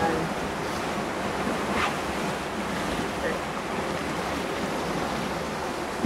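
Steady rushing of river-rapids water around a round raft-ride boat, with wind buffeting the microphone.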